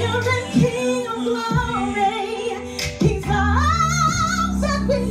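A woman singing a gospel song live into a microphone over steady low instrumental accompaniment, with wordless runs and a long high note with wide vibrato a little past halfway.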